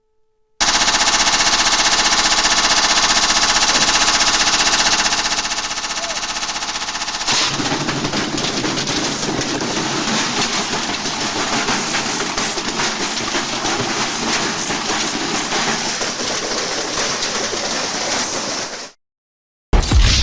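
Washing machine shaking violently in an off-balance spin, its drum banging rapidly and continuously against the cabinet like machine-gun fire. The sound changes character about five and seven seconds in and cuts off briefly near the end.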